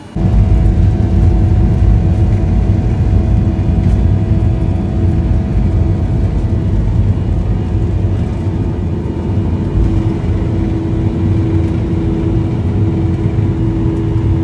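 Airliner engines at high power and the rumble of the wheels on the runway, heard from inside the cabin during the takeoff roll. The sound is a loud, steady rumble with a constant drone on top, and it starts suddenly just after the beginning.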